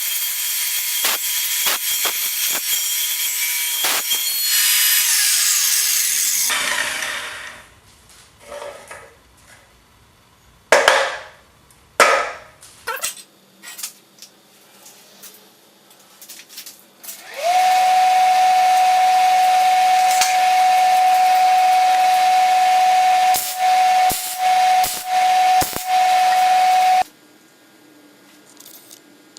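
A power tool running, then spinning down about six seconds in. Several knocks and clanks of metal work follow. The tool spins up again and runs steadily for about ten seconds, dipping briefly a few times, then cuts off.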